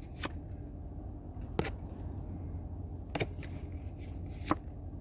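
Pokémon trading cards being flipped through one at a time, a short papery snap about every second and a half, four in all, over a low steady hum.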